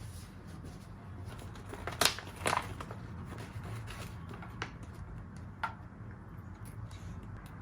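Pet nail clipper snipping a kitten's claws: two sharp snips about half a second apart, a couple of fainter clicks a few seconds later.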